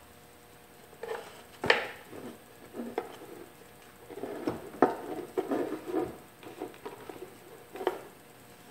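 Handling noises as a computer-style cooling radiator with aluminium angle brackets is test-fitted against a black plastic mounting frame: scattered light knocks and clicks with rustling between them. The sharpest knock comes about two seconds in.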